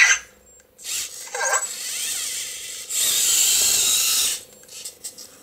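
Anki Cozmo toy robot's small gear motors whirring in spurts as it moves through its excited animation. There is a brief chirp of its electronic voice about one and a half seconds in, and the longest, loudest whir comes from about three seconds to just past four.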